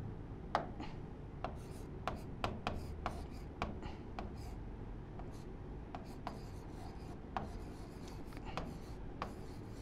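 Stylus tapping and scratching on the glass of an interactive display during handwriting: a string of light, irregular clicks.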